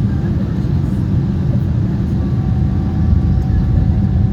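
Steady low rumble of an Airbus A340 airliner, with faint steady whine tones above it.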